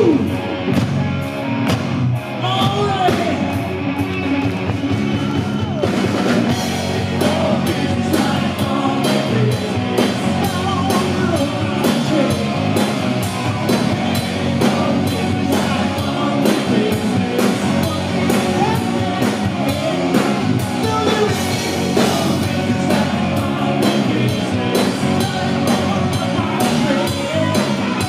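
Hard rock band playing live: loud electric guitars, bass and drums with a lead singer, the drum kit keeping a steady beat that comes through more sharply from about six seconds in.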